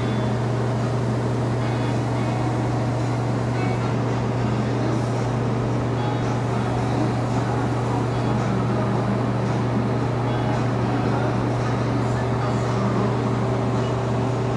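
Paint-booth air equipment running: a steady motor hum with a strong low drone and a constant hiss of moving air.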